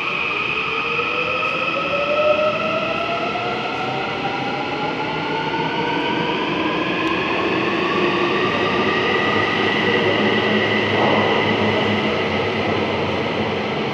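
Incheon Subway Line 1 1000-series electric train pulling away from the platform. Its traction motors and inverter give several whines that rise steadily in pitch as it accelerates, over a continuous rolling rumble.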